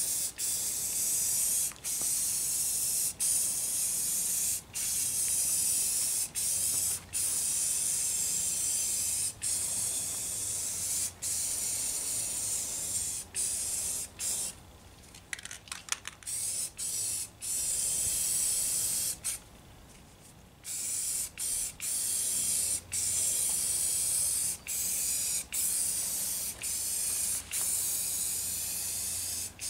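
Aerosol spray-paint can hissing in long passes while a bare wood bench gets a coat of paint. Each pass is broken by a short pause as the nozzle is let go, with two longer breaks about halfway through.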